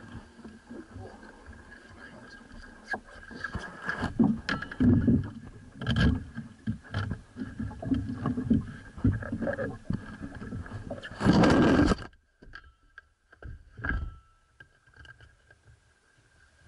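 Camera handling noise aboard a running boat: irregular knocks and rubbing over a steady motor hum and water. A loud rush about eleven seconds in, after which everything goes much quieter, with only a few faint knocks.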